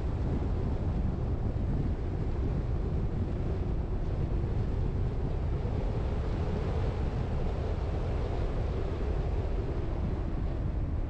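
Steady low rumble of a vehicle driving: road, tyre and wind noise without pauses or changes.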